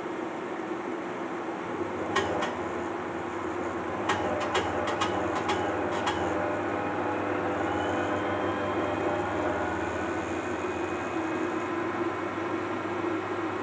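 1958 LGP-30 vacuum-tube computer starting up: a steady mechanical hum, a run of sharp clicks between about two and six seconds in, then a faint whine that rises and levels off.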